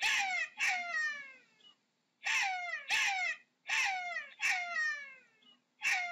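Jackal yelping: about seven short, high cries, each falling in pitch, mostly in quick pairs with pauses between them.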